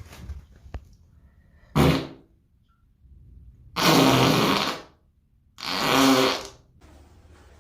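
Three farts: a short burst about two seconds in, then two longer, buzzing ones of about a second each.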